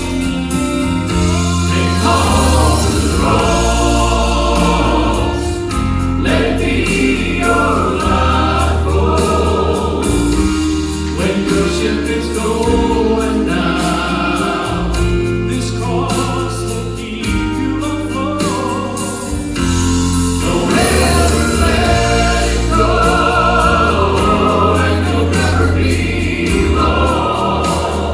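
Gospel vocal quartet singing in harmony over band accompaniment, with a strong bass line and a steady beat.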